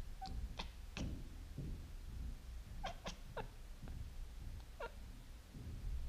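Cat chirping at birds it is watching: short, sharp chirps in small clusters, three in the first second, three more about three seconds in, and one near five seconds.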